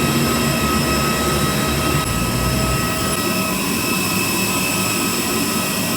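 A steady mechanical drone with several high, level whining tones held throughout, with no rise or fall in pitch.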